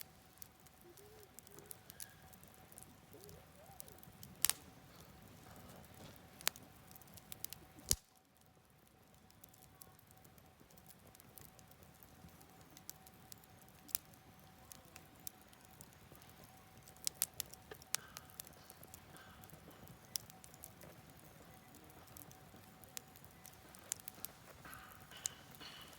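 Wood campfire crackling, with scattered sharp pops at irregular intervals over the faint steady rush of a stream.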